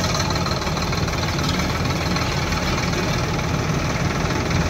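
Diesel engines of a farm tractor and a JCB backhoe loader running steadily together, the tractor idling while the backhoe works its arm.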